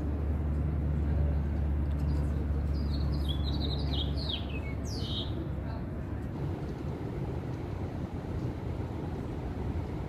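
City background noise: a steady low hum that fades away about halfway through, with a bird giving several short, falling chirps around the middle.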